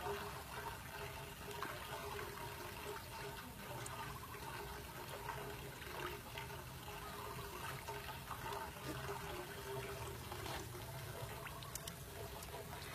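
Water splashing and churning in a tank crowded with goldfish feeding at the surface, with a few small clicks and a faint steady hum underneath.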